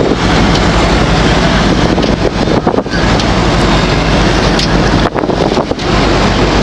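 A fishing boat's engine running under heavy wind buffeting the microphone, as a loud, steady rush with a few brief dips.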